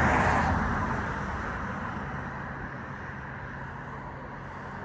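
A car passing by, its tyre and engine noise fading away over the first couple of seconds, leaving a steady low road rumble.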